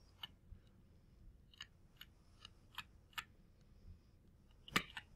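Faint, irregular clicks and taps of a stylus writing on a tablet screen, with one louder click near the end.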